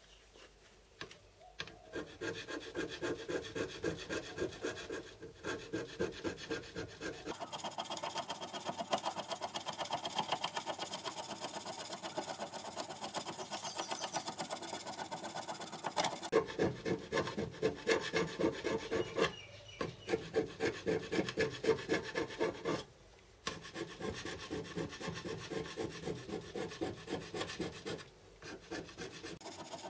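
Rapid, repeated back-and-forth strokes of a hand tool on metal as the two outside bearing strips of a milling-machine tailstand are worked down by hand. The strokes run in long spells broken by a few short pauses.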